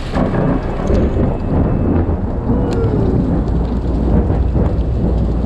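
Thunder rumbling in a long, low roll that sets in suddenly at the start, over rain and hail pattering on the GoPro's housing.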